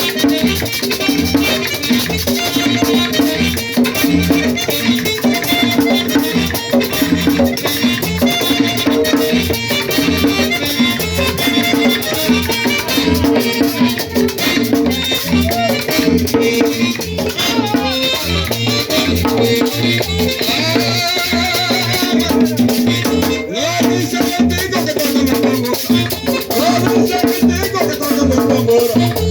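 Live merengue típico played without singing: a fast, steady scraping rhythm and drum under a melody line.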